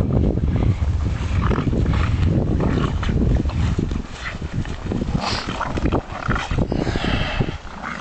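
Two dogs, a Staffordshire Bull Terrier and a Tervueren, growling at each other in rough play, louder in the first half.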